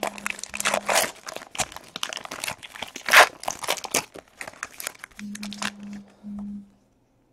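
A plastic trading-card pack wrapper being torn open and crumpled by hand: a dense run of sharp crinkles and crackles that stops a little before the end.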